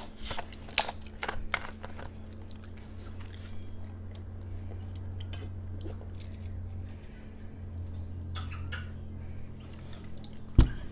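Close-up mukbang eating sounds: a few sharp, wet clicks of biting and chewing seafood in the first couple of seconds, then quieter drinking from a glass soda bottle over a steady low hum. Near the end comes one loud thump as the bottle is set down on the table.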